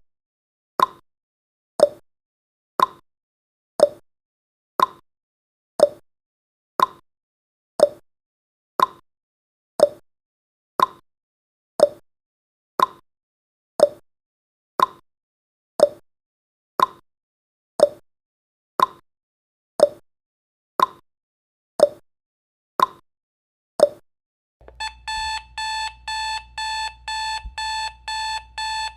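Countdown timer sound effect ticking once a second. About 24 seconds in, an alarm-clock beeping starts, rapid repeated beeps that signal the countdown has reached zero.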